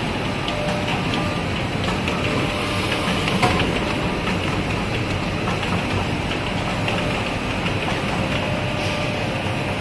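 DBZS servo-driven label finishing machine with hot foil and silkscreen units running: a steady mechanical whir with faint ticks, and one sharp click about three and a half seconds in.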